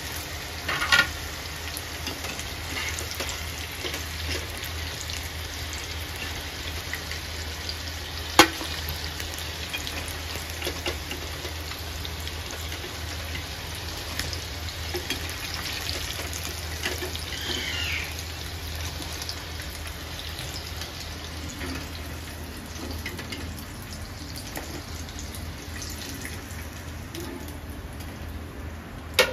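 Eggplant pieces frying in hot oil in a kadhai, a steady sizzle, as the pieces are lifted out with a perforated metal skimmer. A sharp click of the skimmer about a second in and another at about eight seconds.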